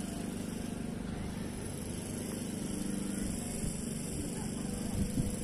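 A steady low mechanical hum, like a running engine, over outdoor background noise, with two short knocks about five seconds in.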